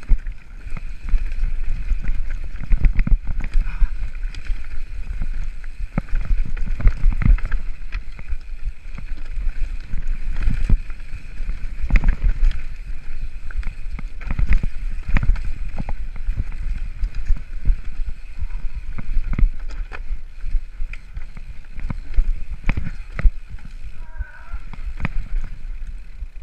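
Mountain bike riding down a rocky, loose-stone trail: continual rattling and knocking as the tyres and frame clatter over the stones, under a deep rumble of wind on the microphone.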